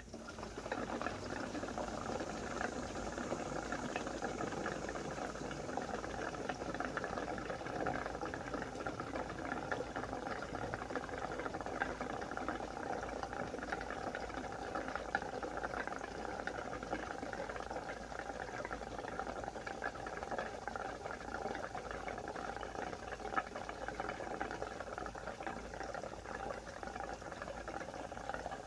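Gasoline pouring from a gallon jug into a fuel mixing can, a long steady gurgling pour.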